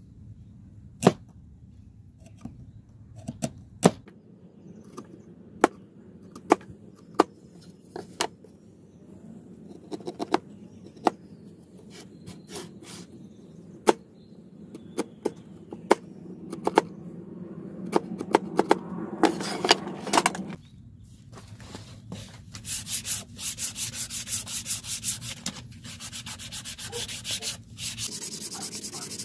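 A wood chisel pushed by hand through a pine board, paring out a notch: scattered sharp clicks and snaps of the blade cutting the wood. After a short pause, hand sanding with a sanding sponge: rapid scratchy back-and-forth rubbing strokes.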